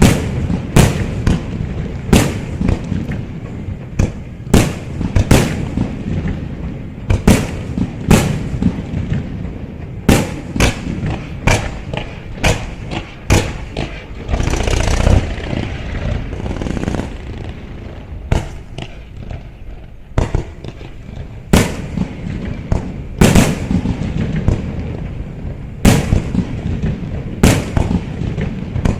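Aerial fireworks shells bursting in quick, irregular succession: sharp bangs, often one every half second to a second, each trailing off in a rumbling echo, with a longer, denser run of bursts about halfway through.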